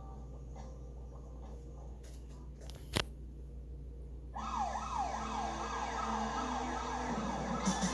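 A low steady hum, a single sharp click about three seconds in, then from about halfway a siren-like electronic wail starts: fast, overlapping rising and falling sweeps in pitch.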